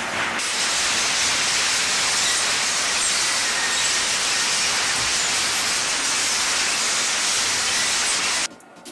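Twin-shaft industrial shredder tearing up metal foil: a loud, steady hiss of crumpling and ripping foil, which cuts off suddenly near the end.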